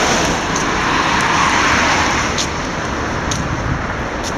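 Road traffic noise: the tyre hiss of a car passing on the road alongside swells during the first two seconds, then eases to a steady traffic hum.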